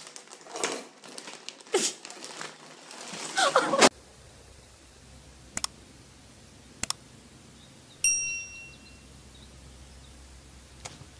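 A plastic bag crinkling and rustling loudly as a cat climbs over it for about four seconds, cutting off suddenly. Then, in a quiet room, a few faint clicks and a single bright ding that rings out briefly, about eight seconds in.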